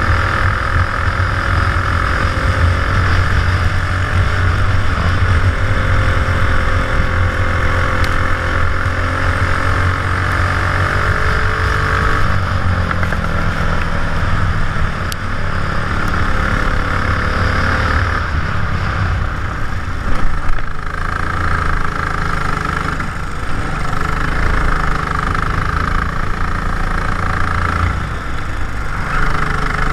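Racing kart engine running hard, its pitch rising and falling as the kart speeds up and slows through corners, with a steady hiss over it, heard from a helmet-mounted camera.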